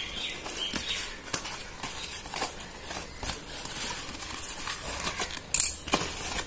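Paper mailer envelope being slit with a utility knife and torn open by hand: irregular crackling, scraping and ticking of paper, with one louder short burst about five and a half seconds in.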